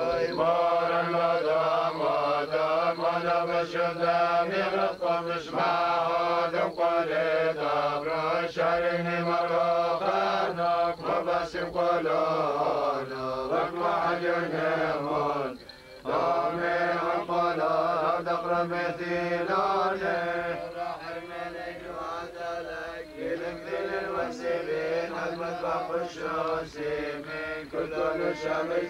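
Syriac Orthodox liturgical chant sung by a male voice, a slow melodic line with long held notes. It breaks off briefly about halfway through, then goes on.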